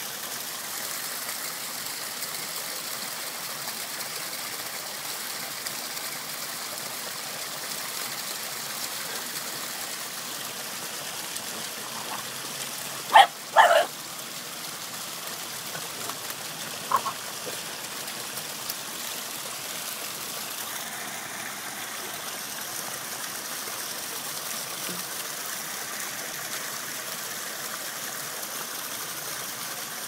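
Small waterfall splashing steadily into a rocky pool. A Brittany puppy barks twice in quick succession about halfway through, then once more, more softly, a few seconds later.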